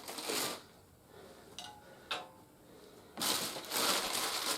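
Plastic packaging crinkling as toy accessory pieces are unwrapped, with two small hard clicks of plastic parts in the middle and a longer, louder spell of crinkling near the end.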